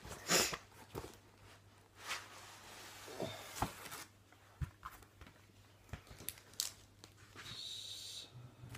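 Packaging rustling and crinkling as items are lifted out of a parcel by hand, with scattered small knocks and clicks.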